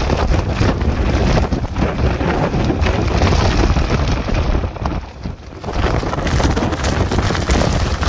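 Strong gusty wind buffeting the microphone, with driving rain. It eases for a moment about five seconds in, then blows hard again.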